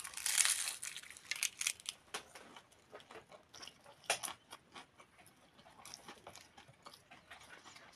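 Close-up crunching of a crisp baked pastry being bitten and chewed. A loud crunchy bite comes at the start, then a run of smaller crunches while chewing, and another sharp crunch about four seconds in. The pastry is slightly over-dried.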